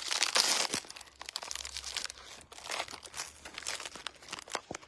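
Packaging on a roll of ribbon being crinkled and torn open by hand. It is loudest in the first second, then goes on as scattered crackles.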